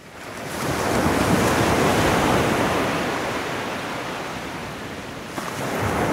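Waves washing, as surf noise: a surge builds over the first second and slowly eases, then a second surge comes in about five and a half seconds in.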